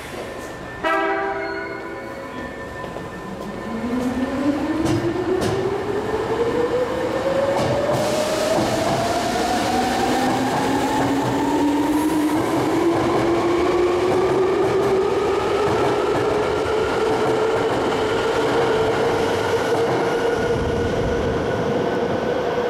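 Hankyu 3300 series electric train departing: a short horn blast about a second in, then the traction motor and gear whine rising steadily in pitch as the train accelerates out of the underground station, with a few sharp clicks from the wheels.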